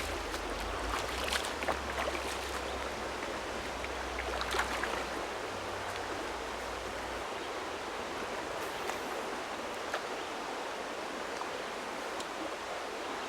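Creek water running steadily over shallow shoals, with a few short sharp sounds in the first five seconds and a low rumble that stops about seven seconds in.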